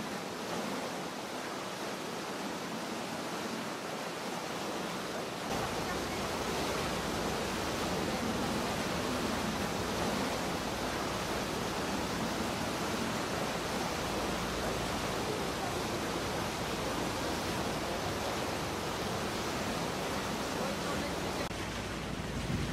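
Steady rushing noise of water and wind past a moving river tour boat. A low rumble joins about five seconds in and continues.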